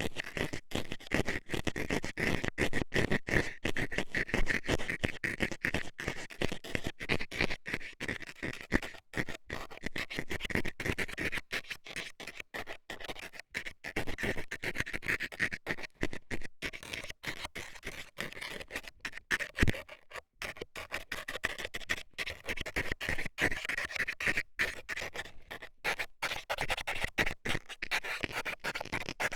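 Metal dental scaler scratching and scraping in an ear right at the microphone, in quick, irregular strokes.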